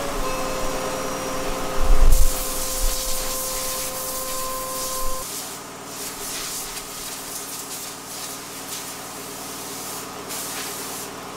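Compressed air hissing hard from an air gun, blowing dust off a white sculpture. The hiss starts suddenly with a loud blast about two seconds in. Under it an air compressor's motor hums steadily and stops about five seconds in.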